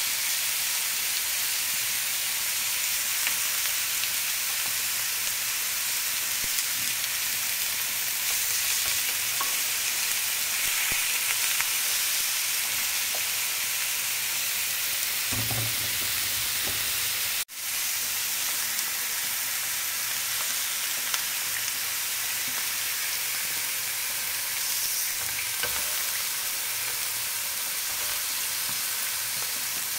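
Bone-in lamb pieces frying in oil in a grill pan, a steady sizzle, with the tongs that turn them knocking lightly now and then. The sound cuts out for an instant about halfway through.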